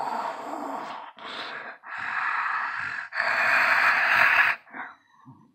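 A woman's vocal imitation of an alligator: a run of four long, breathy hisses, the last and loudest starting about three seconds in.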